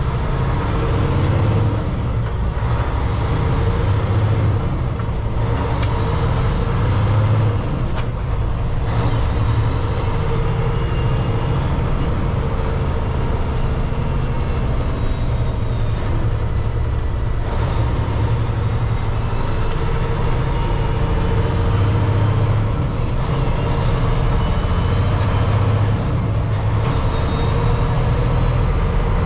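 Semi truck's diesel engine running under load as the truck pulls away through the gears, heard from inside the cab: a deep, steady rumble that eases off briefly a few times. A couple of short sharp clicks cut in, one early and one near the end.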